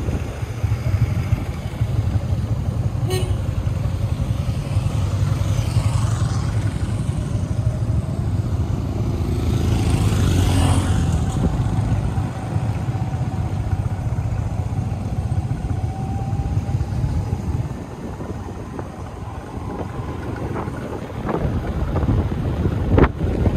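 Motorbike engine running steadily with road and wind noise, with a broad swell of louder noise about ten seconds in.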